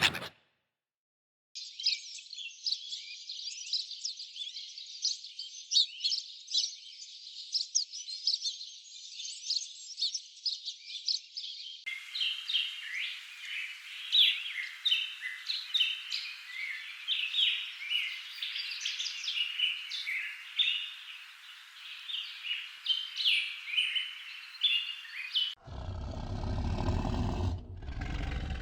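Small birds chirping in quick, overlapping calls, in two separate recordings: the first starts about a second and a half in after a brief silence, and a second, fuller one takes over about twelve seconds in. Near the end the chirping cuts off and a deep animal roar begins.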